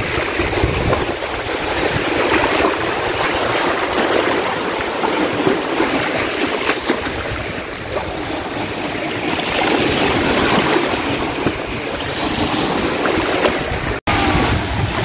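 Small sea waves washing and breaking onto a beach in a steady rush of water. The sound cuts out for an instant near the end.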